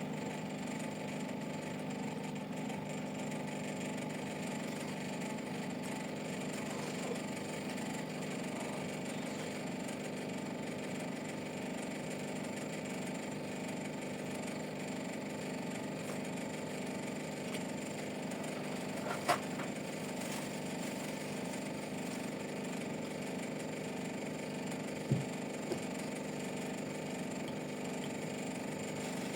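A steady machine hum with several fixed tones, broken by two short clicks, one about two-thirds of the way through and one near the end.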